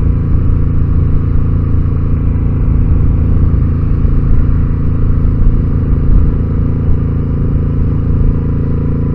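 Motorcycle engine and exhaust pipes running at a steady cruise, an even engine note over a heavy low rumble with no clear revving.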